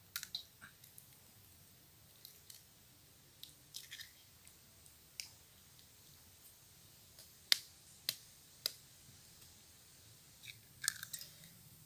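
Eggs being cracked into a bowl: scattered light clicks and taps of shell on the rim, with three sharp taps about half a second apart midway.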